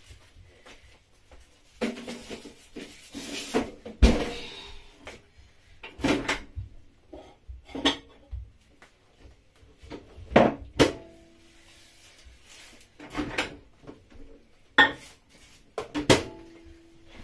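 Kitchen clatter as a foil-lined metal baking tray of chicken goes back into the oven and dishes and utensils are handled on the counter: a string of separate knocks and clanks, the loudest about four seconds in, two of them ringing briefly like struck metal.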